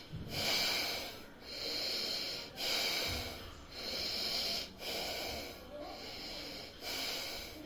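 A man breathing forcefully in and out through the nose in bhastrika pranayama (bellows breath): an even run of hissing breaths, about one a second.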